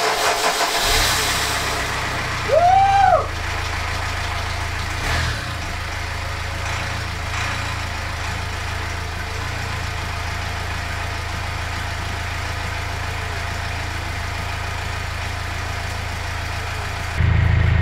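Freshly swapped Subaru Outback 2.0-litre boxer diesel engine starting up on its fourth attempt and settling into a steady idle. About three seconds in a short tone rises and falls, and the engine gets louder near the end.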